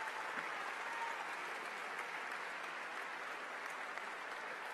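Audience applauding, a steady even clapping that holds throughout.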